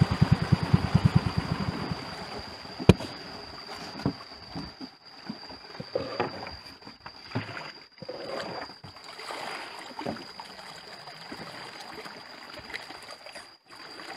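A small boat's motor running with a regular low throb, dying away about two seconds in. A sharp knock follows, then the irregular splashes of a wooden paddle stroking the river water. A steady high-pitched whine runs underneath.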